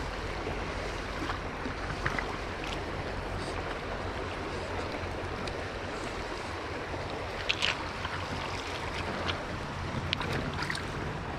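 Shallow river water running steadily over a gravel bed, with a few brief sharp splashes in the second half as a hooked smallmouth bass is drawn in by hand.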